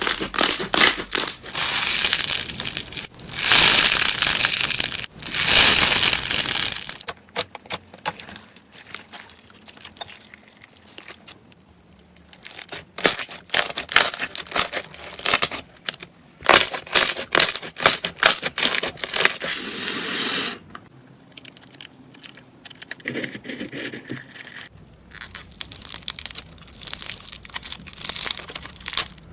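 Slime being squeezed, poked and stretched by hand, giving irregular spells of crackling and popping with quieter gaps between.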